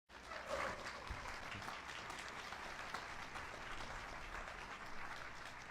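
Audience applauding, many hands clapping steadily; it starts abruptly and eases off a little near the end.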